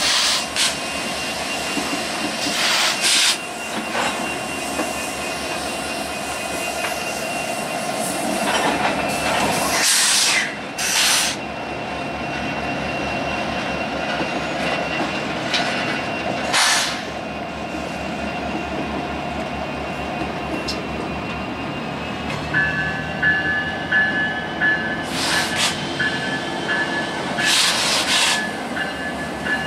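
Canadian Pacific diesel-electric locomotives passing slowly at close range, engines running with a steady low throb and a whine. Several short, loud bursts of noise cut through it.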